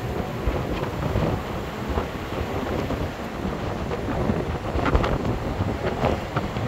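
Wind buffeting the microphone over the rumble of a moving tour bus, with a few short knocks and rattles in the second half.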